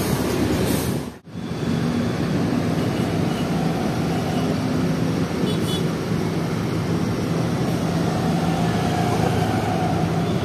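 Diesel engines of tour buses running in slow, crawling traffic: a steady low drone with a hum of engine tones. It cuts out briefly about a second in, then carries on the same.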